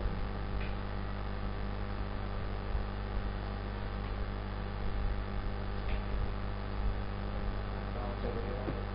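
Steady electrical mains hum with a layer of hiss under it, and a few faint ticks.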